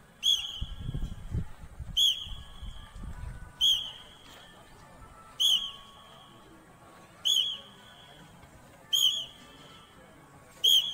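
A coach's whistle blows a short, sharp blast about every two seconds, seven times, keeping time for a group doing sit-ups in unison.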